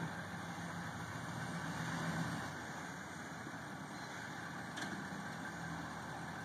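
Ex-military Chevrolet K30 M1008 pickup's 6.2-litre diesel V8 running steadily at low revs as the truck moves slowly.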